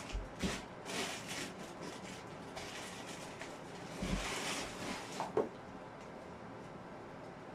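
Rustling and dull bumps as clothes are rummaged through and pulled out of a large cardboard box, settling down after about five seconds.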